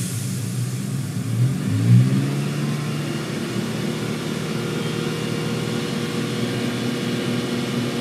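2014 Chevrolet Malibu engine revved up from idle about two seconds in, then held steady at about 2,400 rpm for a fuel-trim check.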